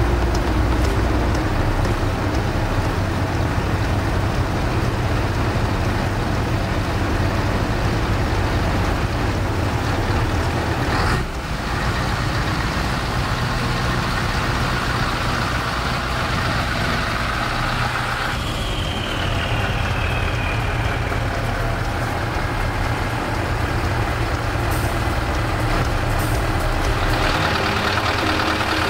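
Scania 164 580 V8 diesel truck engine running with a deep, steady rumble, the truck pulled out of the hall onto the yard. A faint falling whistle comes about two-thirds of the way through.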